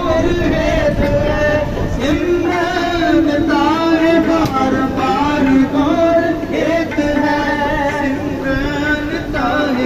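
Sikh kirtan: a singer chants a Gurbani hymn in long, held, wavering notes.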